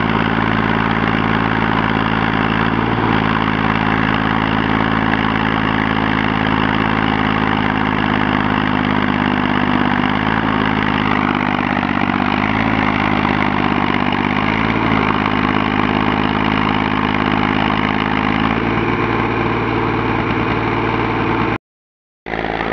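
Tractor engine running steadily as the tractor pushes through deep snow, its revs dipping and recovering a few times. The sound cuts out abruptly for a moment near the end.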